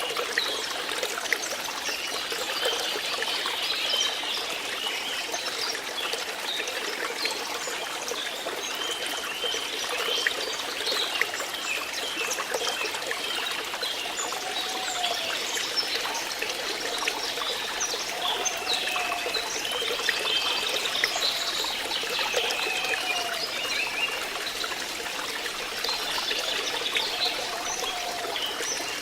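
Water trickling and flowing steadily, like a small stream, with short high curving notes over it throughout.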